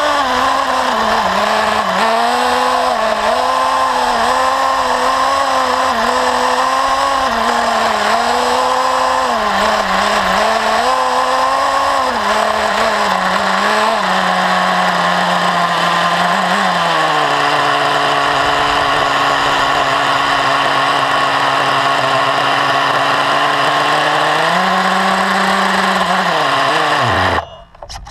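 XTM Rail RC buggy's small nitro glow engine running, its pitch rising and falling with the throttle through the first half. About halfway it settles to a lower, steady idle, revs briefly near the end, then stops abruptly about a second before the end.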